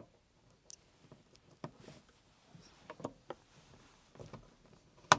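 Handling an XLR cable as it is plugged into an audio interface input: a few light clicks and knocks, then one sharp click near the end.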